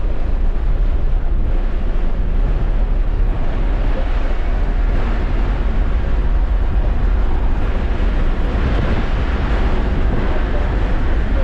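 Steady road and wind noise inside the cabin of a Tesla Model 3 at speed, heavy in low rumble and with no engine note. The hiss swells a little about eight seconds in.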